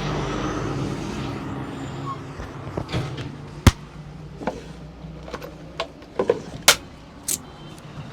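Low rumble of street traffic fading over the first two seconds, then about six sharp slaps and cracks from the barber's hands working the head and neck, the loudest two about three seconds apart.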